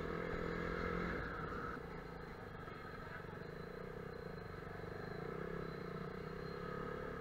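Motorcycle engine running at low road speed, heard from the rider's seat. The note drops about a second in, then runs steady.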